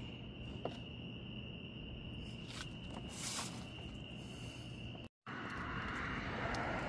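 Steady high trill of crickets, with a few faint clicks and a brief rustle. About five seconds in the sound cuts out for a moment and gives way to a louder rushing noise without the trill.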